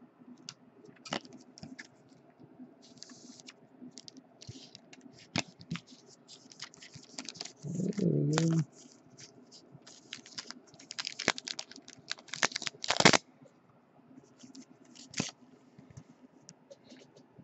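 Clear plastic card sleeve and rigid top loader being handled as a trading card is slid into them: irregular crinkling and sharp plastic clicks, the loudest near the end. A short hum of voice about halfway through.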